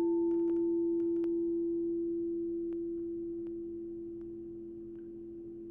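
A singing bowl ringing out after being struck: one strong steady tone with a fainter higher overtone, slowly fading.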